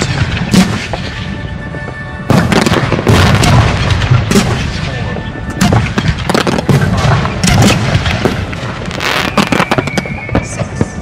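Fireworks cakes firing in quick succession: a dense string of sharp bangs and pops, which picks up sharply about two seconds in.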